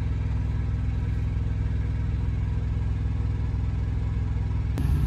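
Steady low hum of an idling diesel engine inside a truck cab; the hum's tone changes abruptly near the end.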